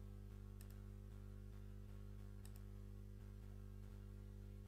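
Computer mouse clicking twice, about two seconds apart, each click a quick double tick of button press and release, over a steady low hum.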